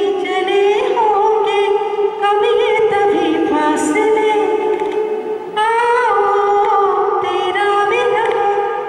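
A woman singing a song into a handheld microphone, amplified through the PA. She holds long notes with wavering, sliding ornaments and takes a brief breath about five and a half seconds in.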